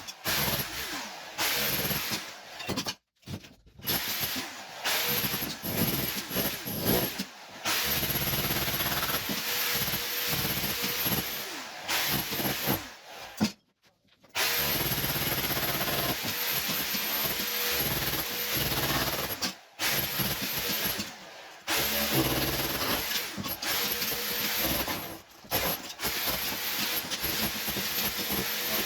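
Electric power tool running in long stretches broken by brief stops, at work stripping old kitchen wall tiles.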